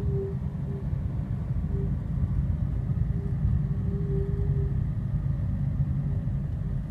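Peugeot car in traffic making a steady-pitched moaning tone, its "whale noises", that comes and goes in short stretches over the low rumble of engine and road. It is the sign of a fault that the owner cannot name.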